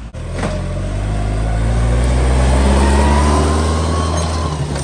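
Ford Ranger pickup's engine under hard throttle, the truck stuck in second gear, its note climbing steadily in pitch and loudness for about three seconds before easing off near the end, with a faint whine above it.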